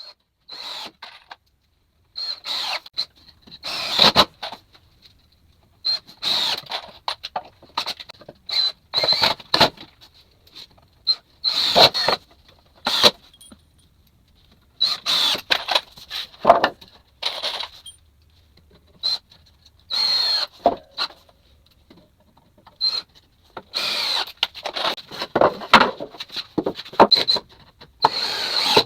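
Power tools at work on 2x4 framing lumber in many short, irregular bursts of about a second each, with a thin high whine in many of them.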